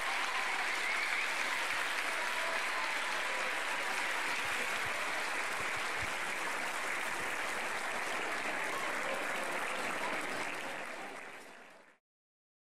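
Audience applauding steadily, with a few faint voices mixed in; the applause fades out near the end.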